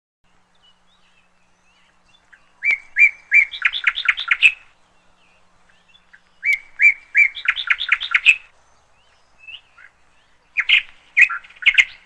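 A bird chirping in three bouts a few seconds apart. Each bout opens with a few separate high notes, then breaks into a quick run of chirps.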